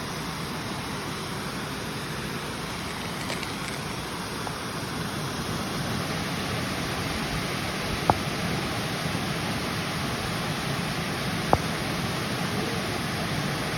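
River water flowing and splashing steadily, with two short sharp clicks, about 8 and 11.5 seconds in.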